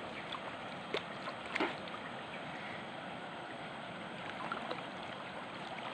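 River water rushing steadily, with two brief knocks about one and one and a half seconds in.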